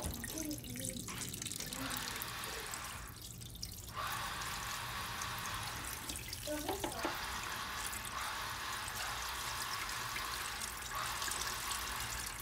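Water and apple juice poured in a steady stream from a plastic pitcher into a Ninja pressure cooker's inner pot, splashing onto ribs on a wire rack. The pour eases off briefly twice.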